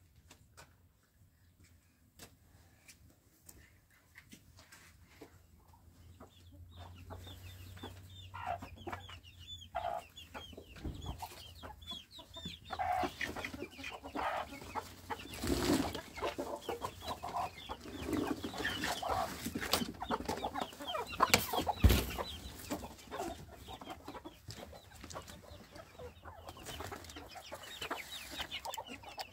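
Chickens clucking and cheeping, starting a few seconds in and carrying on, mixed with scattered knocks and clatter. A sharp knock about two-thirds of the way through is the loudest sound.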